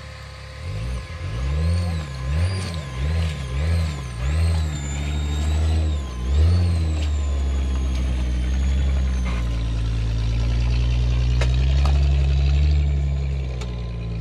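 Rock-crawler buggy's engine revving in a string of short throttle blips, then held at steady higher revs under load as it climbs over boulders, with a high wavering whine above the engine note.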